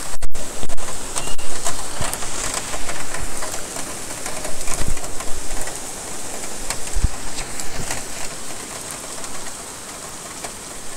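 Heavy summer downpour: hard rain hissing and pattering on garden plants, leaves and pavement, with scattered sharper drops striking surfaces. It eases somewhat over the last few seconds.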